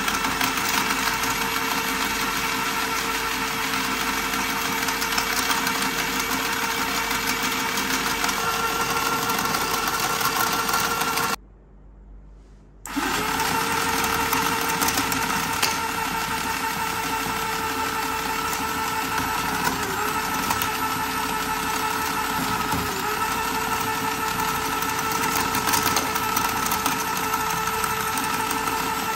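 Small Duck stair-climbing slide toy running on 9 V from a bench power supply: its small electric motor whines steadily while the plastic moving-stair mechanism clatters. About 11 seconds in the sound drops out for a second and a half, then returns with the whine rising back up to pitch.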